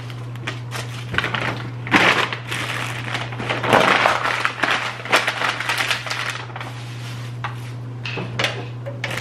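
Plastic takeout food packaging being handled and unpacked: irregular crinkling, crackling and clicking, busiest in the first half, over a steady low hum.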